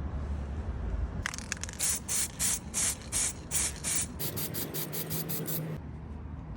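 Aerosol spray can giving a run of short hissing bursts, about three a second at first, then quicker, shorter squirts, over a low steady hum.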